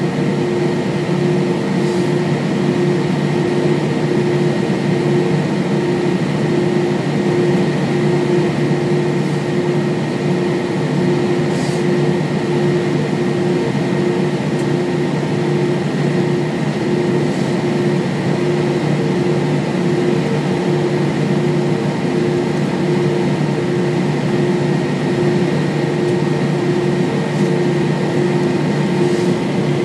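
Steady cabin noise inside an Airbus A320-232 on the ground before takeoff: its IAE V2500 engines idling and the air conditioning running, a constant hum with a few steady tones.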